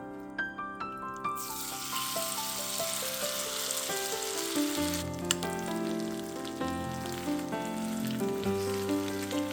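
Food sizzling in butter in a frying pan: a hiss that starts suddenly about a second in and eases after about five seconds, over background piano music.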